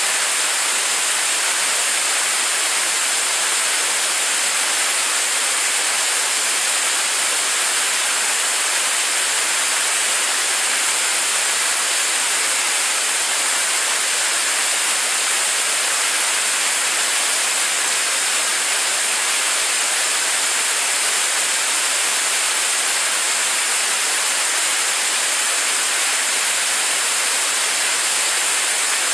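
75-ton-class kerosene–liquid-oxygen rocket engine firing steadily during a long-duration static test: a loud, unbroken rushing noise, strongest in the high end with little deep rumble.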